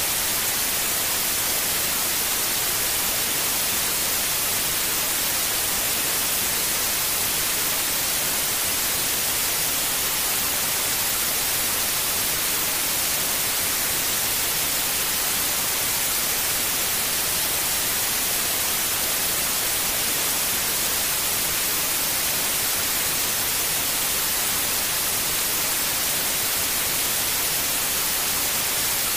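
Steady white noise: an even, unchanging hiss, brightest in the high end, made to lull a newborn to sleep.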